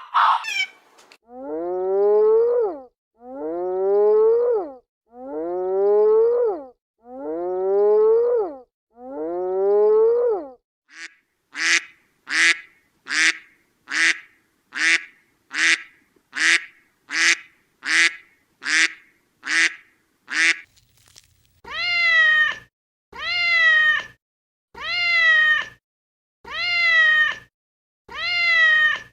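Three runs of animal calls, each run the same call repeated over and over. First come five long calls, each rising in pitch. Then about fourteen short, high calls follow quickly one after another. Last come five cat-like calls, each falling slightly at the end.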